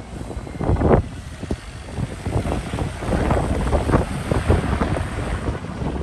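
Wind buffeting the microphone in irregular gusts over a low rumble, with one strong gust about a second in and more frequent ones from about three seconds in.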